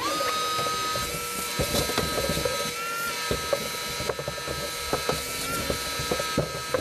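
An electric motor starts abruptly and runs with a steady high whine, its pitch rising briefly a few times, while scattered clicks and rattles sound over it.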